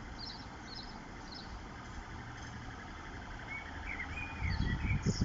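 Small birds chirping in short high calls over a steady low background hum. Near the end, a loud, uneven low rumble swells up.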